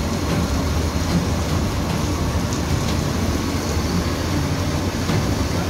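Mobile crane diesel engines running steadily while hoisting a heavy truck, a constant low rumble under a broad rushing noise.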